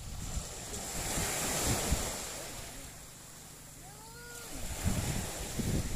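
Surf breaking and washing up a pebbly shore, with wind rumbling on the microphone; the wash dies down about halfway through and builds again near the end.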